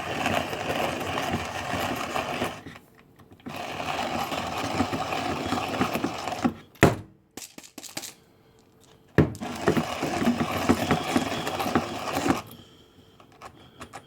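Manual hand-crank coffee grinder grinding coffee beans into a mason jar: a fast, gritty rattle of the crank and mill in three stretches, stopping twice for a moment, with a sharp knock about seven seconds in and another as grinding resumes.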